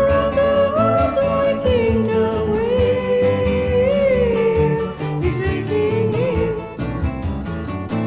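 1970s folk-rock song: a long sung note that slides up and down and is held for several seconds, then a shorter sung phrase, over acoustic guitar and a quick steady beat.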